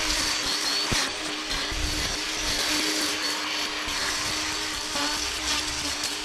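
Cordless battery brushcutter fitted with a metal grass-cutting blade, its electric motor running with a steady whine as the blade cuts through long grass.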